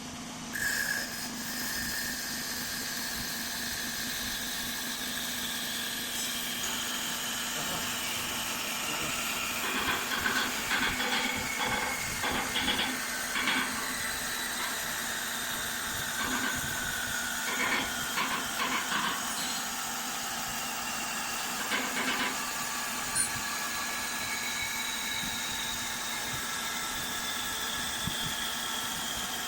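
Wood CNC machine running while cutting a wooden stick: a steady mechanical whine with high tones that slowly fall in pitch, and, from about a third of the way in to about three quarters, a stretch of rattling cutting noise with many short strokes.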